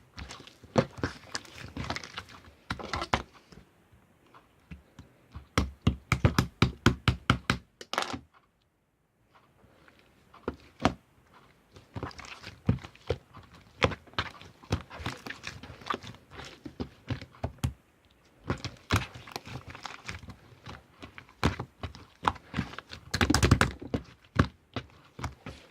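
Slime being pressed, poked and stretched by hand, making many short clicking pops. A quick run of pops comes about six seconds in, then a short silent gap, and a louder dense cluster near the end.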